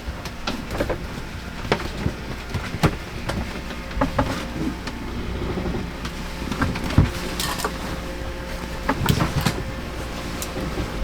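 Scattered clicks, knocks and creaks of a sailing yacht working in a rolling sea, over a steady low hum.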